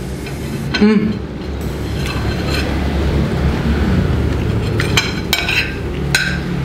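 A spoon clinking against a plate a few times while eating, once about a second in and several times near the end, over a steady low rumble.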